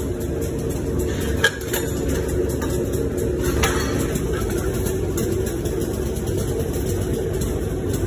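Steady hum of factory machinery, with a few light metallic clinks: a sharp one about a second and a half in and another about three and a half seconds in.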